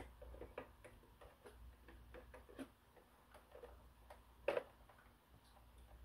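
Faint, irregular ticking and clicking as the main roller brush of a Neabot robot vacuum is turned by hand in its housing, checking that the reinstalled brush spins freely. A short louder sound stands out about four and a half seconds in.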